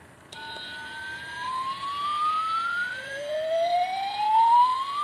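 Interactive plush puppy toy playing an electronic sound effect through its speaker: slowly rising whistle-like tones, a second rising tone joining about three seconds in.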